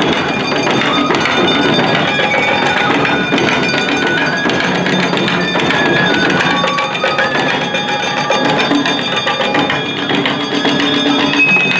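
Japanese taiko drums played by an ensemble: dense, fast strikes on rope-tensioned drums, with a high melody of held, stepping notes over the drumming.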